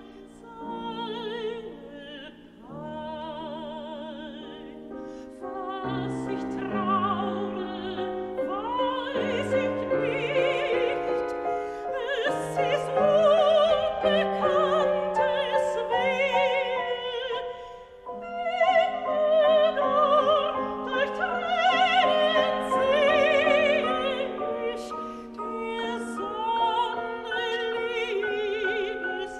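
A classically trained mezzo-soprano singing a German art song with wide vibrato, accompanied by a grand piano. Her phrases swell louder in the middle, with a brief drop about two-thirds of the way through.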